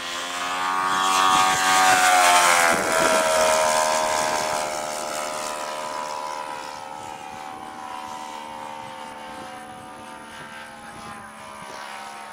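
Engine and propeller of a radio-controlled scale Hellcat model airplane making a low pass: it grows loud to a peak about two seconds in, its pitch drops sharply as it goes by, then it fades to a steady, lower drone as it flies away.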